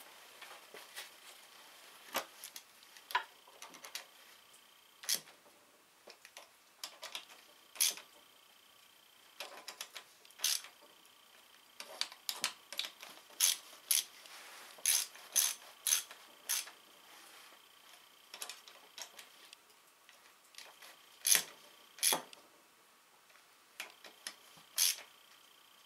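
Irregular metallic clicks and clinks of a hand tool working on the differential housing of a John Deere 300-series garden tractor's rear axle, some single and some in quick runs.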